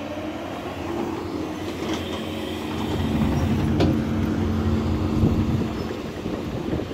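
Tracked excavator's diesel engine running under load as the boom and bucket work, with a single sharp knock about four seconds in.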